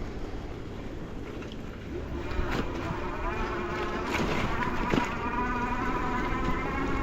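Bicycle riding over a forest trail, with a steady rumble and scattered knocks. About two seconds in, a buzzing whine starts, rises slightly in pitch, then holds steady until it stops near the end.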